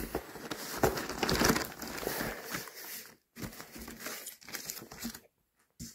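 Cardboard and paper packaging rustling and crinkling as a hand rummages in an open cardboard box and shifts printed leaflets. It is loudest over the first three seconds, then goes on as quieter, scattered scraping and shuffling.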